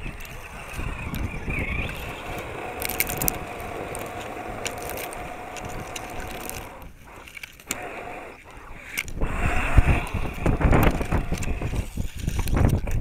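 Electric motor and gears of a 1/10-scale RC crawler truck whining as its tyres dig and spin through loose sand, with grit ticking and spattering. Wind rumbles on the microphone, loudest in the last four seconds.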